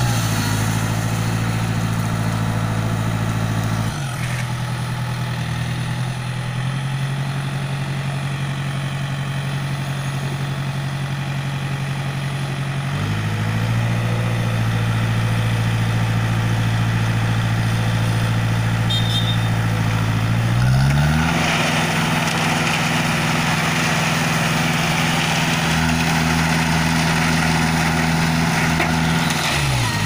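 Diesel engine of a Schwing Stetter SLM 2200 self-loading concrete mixer running steadily while its hydraulic loading bucket works. The engine speeds up about a third of the way in, speeds up again with a rushing noise as the loaded bucket is lifted toward the drum, and drops back just before the end.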